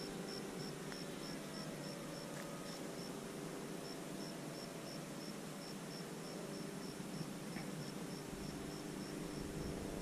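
A cricket chirping steadily in high, even pulses, about four a second, over the steady drone of the E-flite F-27 Evolution's electric motor and propeller high overhead. A low rumble comes in near the end.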